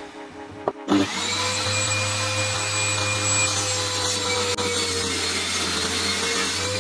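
Table saw switched on with a click about a second in; the motor spins up to speed and then runs steadily while a pine board is fed over the low blade, cutting a groove along it.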